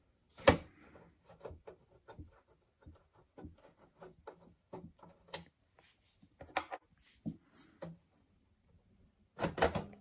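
The knurled thumbscrew on the back of a Dell Optiplex USFF computer case is being turned out by hand. There is a sharp click about half a second in, then a run of faint irregular ticks and scrapes from the screw and the metal chassis. A louder clatter comes near the end.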